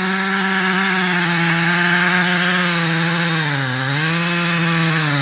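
A two-stroke chainsaw runs at high, steady revs through a felling cut. Its pitch sags about three and a half seconds in and again near the end as it loads in the wood, then picks back up.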